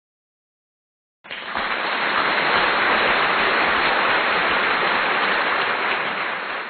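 Stock sound-effect clip of a steady, dense rushing noise, like heavy rain or running water, that starts about a second in, swells up quickly and holds even before fading near the end.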